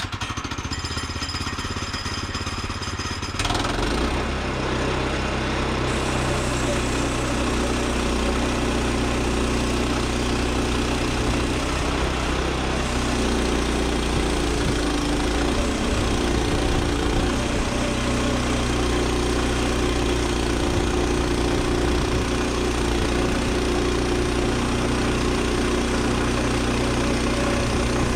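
Gasoline engine of a Woodland Mills 122 portable bandsaw mill running steadily. About three and a half seconds in, it steps up to a louder, fuller sound and holds there as the band blade cuts a slab from a cherry log.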